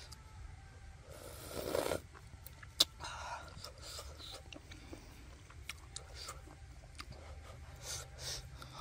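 Close-up eating sounds: a person chewing cooked mushroom and chili, with a loud breathy suck of air through the mouth about a second in, a sharp click near three seconds, and small wet mouth clicks throughout.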